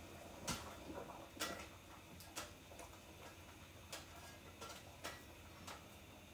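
Faint, irregular clicks and light taps of kitchen things being handled at the stove, about one a second.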